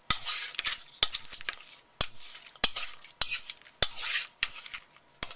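Cauliflower florets being tossed in hot sauce and melted butter in a mixing bowl. A utensil clacks against the bowl about every two-thirds of a second, with wet scraping swishes between the knocks.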